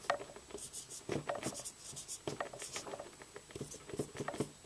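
Marker pen writing on a whiteboard: a quick, irregular series of short strokes as letters are drawn.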